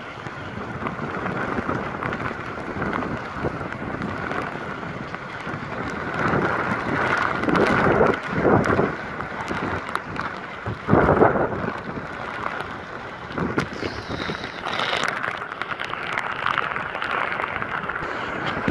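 Hurricane wind and heavy rain: a steady rushing roar of wind-driven rain, with gusts swelling several times, the strongest just past the middle.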